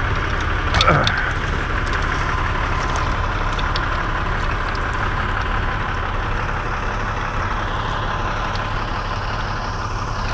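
A bucket truck's engine idling steadily, with a steady whine over it and a few light clicks. About a second in, a brief sound slides down in pitch.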